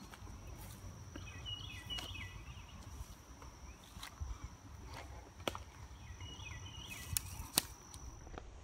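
Footsteps through grass and brush, with scattered sharp clicks and rustles, while a bird gives a short chirping call twice in the background over a steady high whine.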